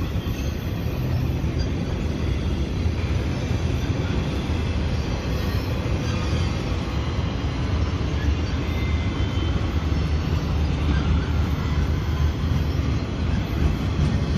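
Union Pacific intermodal freight train rolling past: a steady low rumble of steel wheels on rail from the flatcars and container well cars, with a few faint, brief wheel squeals.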